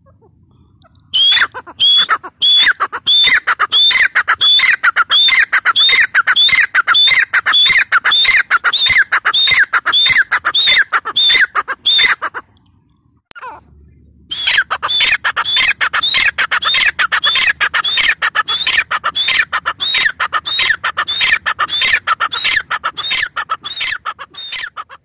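Grey francolin calling: a fast run of loud, shrill repeated notes, about three a second, breaking off for a second or two about halfway and then starting again.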